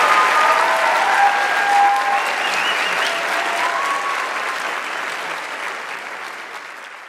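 Theatre audience applauding, with a few whoops over the clapping, after a musical number ends; the applause fades away over the last few seconds.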